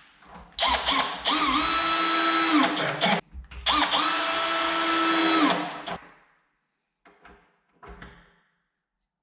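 Power drill running in two bursts of about two and a half seconds each, its motor whine rising to speed and winding down each time, as the door handle's fixing bolts are driven in. A few faint knocks follow.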